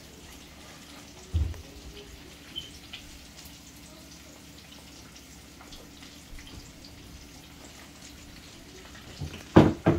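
Chicken frying in hot oil, a steady faint sizzle with scattered small crackles. A dull thump about a second and a half in, and a louder knock near the end.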